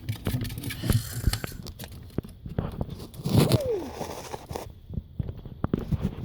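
A young pet bird moving about on a crinkly surface: scattered scratching, tapping and crinkling, with one short sound falling in pitch about three and a half seconds in.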